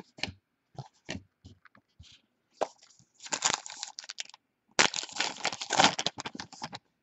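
Trading card pack wrapper crinkling and tearing open, in two dense noisy stretches of about a second and a half each, after a few light clicks of cards being handled.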